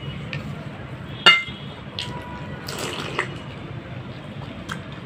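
Eating fuchka (pani puri): puris dipped into and filled from glass bowls of tamarind water, with small splashes and liquid sounds, and one sharp, briefly ringing clink of glass about a second in.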